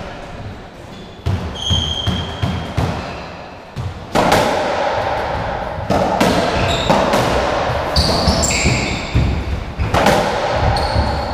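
Racketball rally: the ball cracks off rackets, walls and the wooden floor in a string of sharp, echoing hits that get more frequent from about four seconds in, with trainers squeaking briefly on the court floor.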